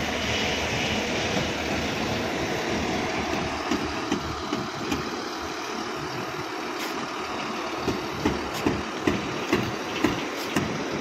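BharatBenz sleeper coach's diesel engine idling steadily. A series of short knocks, about two a second, comes in the second half.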